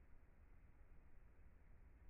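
Near silence: only faint, steady low background noise.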